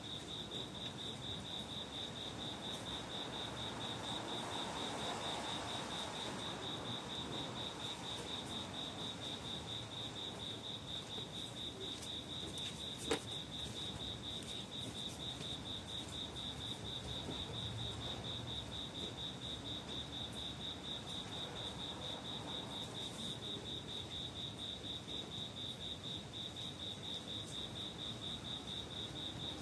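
An insect chirping steadily: an even, high-pitched pulsing call that keeps on without a break, over a faint hiss, with one sharp click about thirteen seconds in.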